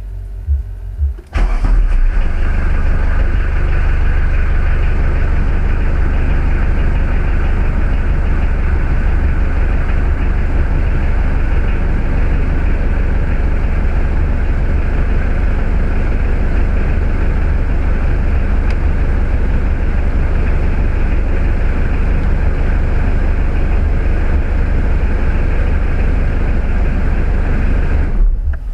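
Car heater blower fan running at high speed: a loud, steady rush of air with a low rumble. It switches on abruptly about a second in and cuts off near the end. It is being run as a test of a newly fitted ventilation control unit.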